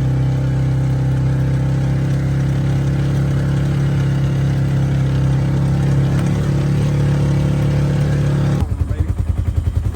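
Engine of a side-by-side buggy running steadily while riding. About nine seconds in, the sound changes abruptly to a slower, evenly pulsing engine note.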